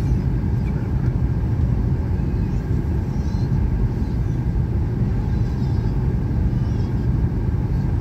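Steady low rumble of engine and airflow noise inside a Boeing airliner's cabin during its descent.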